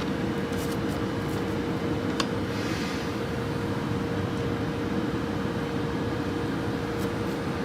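Folding-carton tape-applying machine running with a steady mechanical hum and a constant tone, with a few light clicks about two seconds in.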